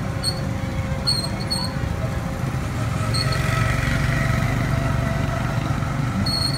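Steady low mechanical rumble of the Frog Hopper kiddie drop ride's machinery as it lifts the seat carriage, growing a little louder midway, with a few short high squeaks.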